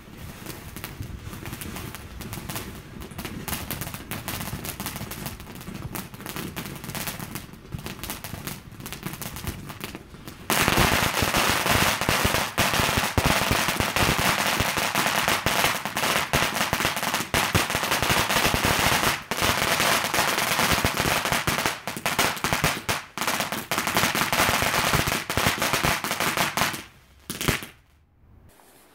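Ghengis Fireworks Mega Eruption firework fountain spraying sparks with a hissing crackle. About ten seconds in it switches suddenly to a much louder, dense rapid crackling, then dies away about two seconds before the end as the fountain burns out.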